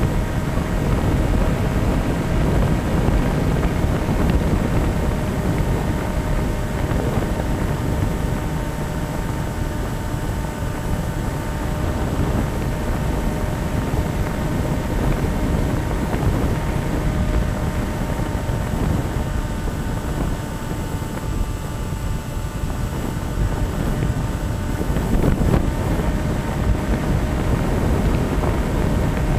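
Wind rushing and buffeting over the microphone of a radio-controlled foam airplane in flight, with the steady whine of its motor and propeller underneath. The wind rumble eases off for a few seconds about two-thirds through, then returns.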